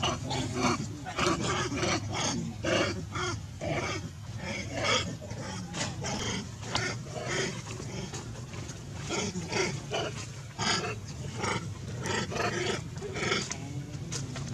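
Baby macaque crying: a rapid run of short, high-pitched squeals and screams, two or three a second, as adult macaques handle and hold it down.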